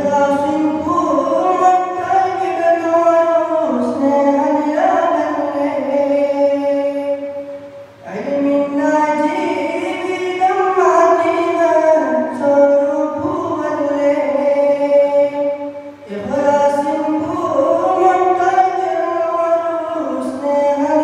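A man singing a Malayalam memorial song solo at a microphone, in long melodic phrases with held notes. He takes short breaks about eight and sixteen seconds in.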